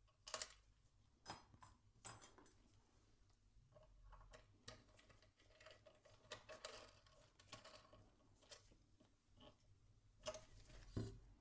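Near silence with faint, scattered clicks and taps: a small metal nut and bolt being handled and fitted into the frame by gloved hands.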